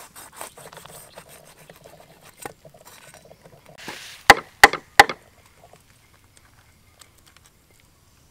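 Cleaver chopping fish on a round wooden chopping board: three sharp, loud chops about a third of a second apart a little past halfway, after fainter knocks of the blade and board.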